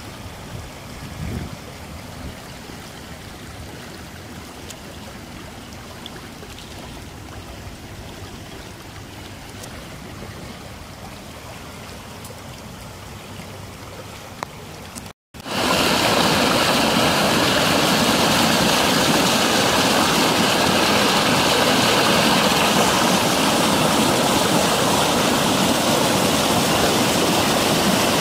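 Muddy floodwater rushing down a wadi in spate after heavy rain. It is a faint, steady wash at first, then, after a brief break a little past halfway, a much louder, close rush of water.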